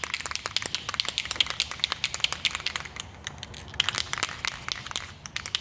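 Aerosol can of spray primer being shaken, the mixing ball inside rattling in rapid sharp clicks, with a couple of brief pauses.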